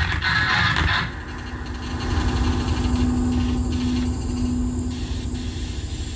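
Live electronic noise music. A dense, full-range noise texture cuts off about a second in, giving way to a low rumbling drone with one steady held tone.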